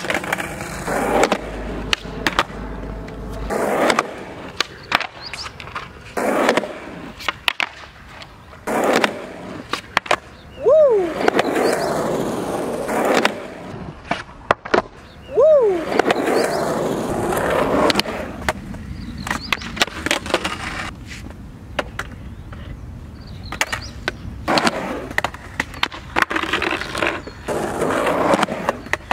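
Skateboard wheels rolling on concrete and asphalt, broken by repeated sharp clacks of the tail popping and the board slapping down on a concrete bank ramp during kickflip attempts. There are heavier hits twice near the middle, each with a short squeak that rises and falls.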